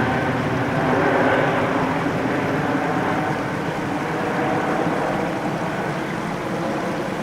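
Airbus A380 jet engines rumbling as the airliner passes on a low approach, with a faint high whine at first and the noise slowly fading.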